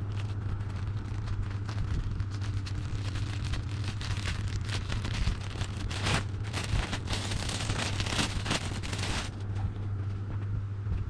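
Plastic courier mailer bag crinkling and rustling as it is handled and opened, loudest from about six to nine seconds in, over a steady low hum.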